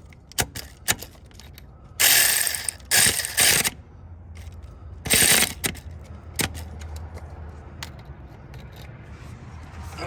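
Cordless impact wrench hammering in three short bursts on a broken exhaust header bolt that has a washer welded to it, with clicks of tool and socket handling between the bursts. The bolt does not come loose.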